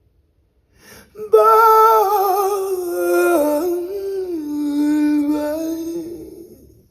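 A solo singing voice holds one long note with vibrato after about a second of silence, its pitch stepping down a little toward the end before it fades out. It is a recorded vocal played back through hi-fi loudspeakers.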